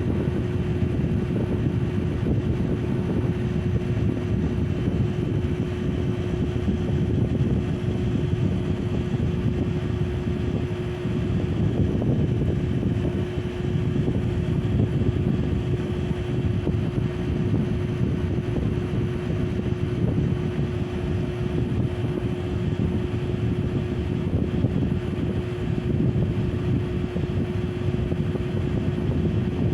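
Small Mabuhay Star ceiling fan running steadily, its blades moving air with an even whoosh over a constant motor hum.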